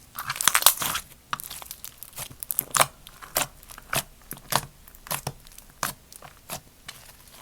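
Slime being squeezed and pressed by hand, giving crisp crackling pops. The pops are dense at first, then settle into a steady pop about every two-thirds of a second that grows fainter toward the end.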